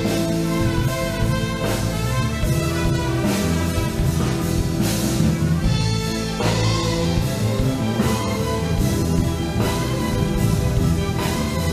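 Symphonic wind band playing an instrumental passage: trumpets and trombones hold sustained chords over the tuba, with a drum kit keeping time and a few cymbal crashes.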